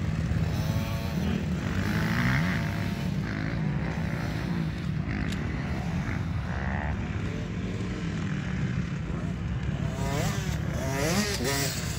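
Dirt bike engines running over a steady low rumble, their pitch rising and falling again and again as they rev up and ease off.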